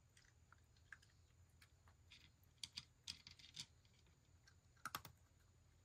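Cat eating from a shallow dish: faint, irregular crunching clicks, with a cluster in the middle and the loudest pair near the end.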